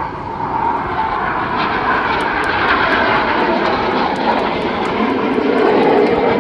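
Aircraft engine noise from a plane flying past, growing louder with its pitch falling as it passes.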